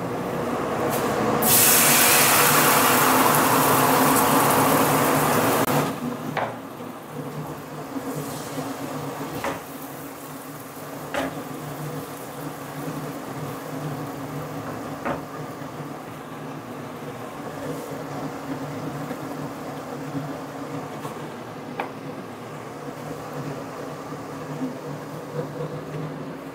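Kitchen sounds at a gas stove: a loud hiss starts about a second in and cuts off sharply some four seconds later. A steady low hum follows, with a few light clicks spaced several seconds apart.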